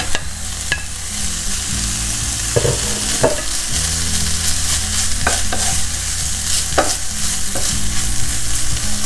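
Shrimp and vegetables sizzling in a frying pan, stirred with a spatula that scrapes and clicks against the pan several times.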